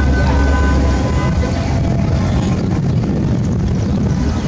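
Cars and pickups driving slowly past in a line: steady engine and tyre rumble, deepest in the first second as an older GMC Suburban passes close by.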